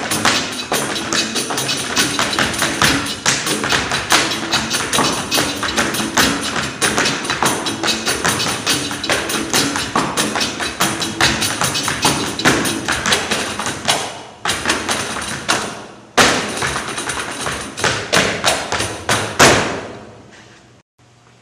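Dancers' rapid percussive footwork, dense fast strikes of shoes on the stage floor, over music. The flurry breaks off briefly twice in the second half and ends with a last loud strike about 20 seconds in, then rings away.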